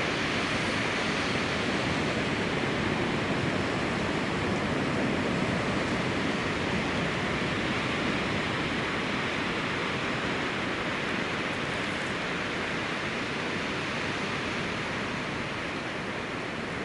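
Strong mountain wind blowing steadily, a continuous rushing noise that eases a little near the end.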